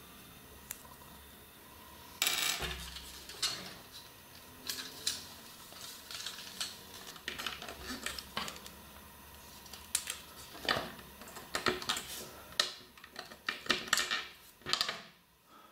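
Small hard plastic parts being handled: irregular clicks, taps and rattles that start about two seconds in and come thicker toward the end.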